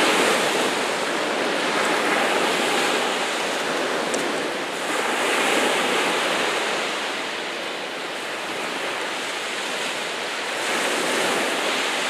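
Sea waves washing and churning, the sound swelling and easing every few seconds.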